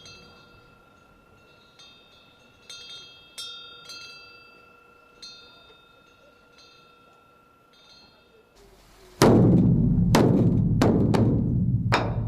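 Bronze temple wind bell (pungyeong) ringing in the breeze: scattered light clinks that leave long-held high tones hanging. About nine seconds in, a large Buddhist dharma drum (beopgo) starts being beaten, with loud, deep strokes in quick succession.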